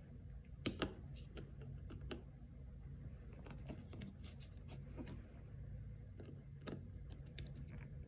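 Small plywood and clear plastic pieces of a mechanical iris handled by fingers: faint scraping with scattered light clicks as the pieces and pins are pressed and nudged to line up. One of the pins is not straight. The sharpest clicks come just under a second in and shortly before the end.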